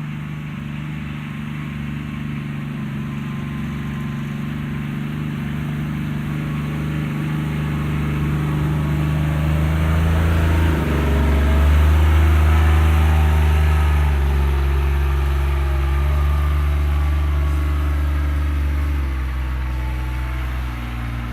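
Kawasaki Mule PRO-DX's three-cylinder diesel engine running steadily while driving, getting louder around the middle and shifting in pitch a few times.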